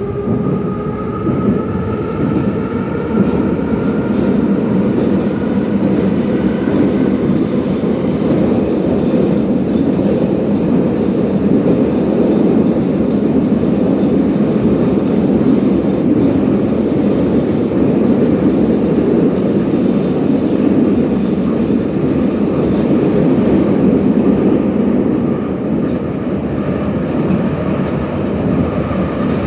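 Metro train of the 81-717 ('nomernoy') type running, heard from inside the car: a loud, steady rumble of wheels and running gear. Over the first few seconds a motor whine rises in pitch as the train gathers speed, and a thin high whine is heard from about four seconds in until near the end.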